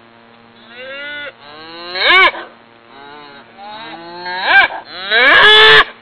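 Cows mooing: a series of calls that rise and fall in pitch, with fainter moos between louder ones and the longest, loudest moo near the end.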